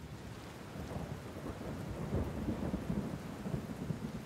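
Thunderstorm ambience: steady rain with low rolling thunder, the rumble swelling about two seconds in.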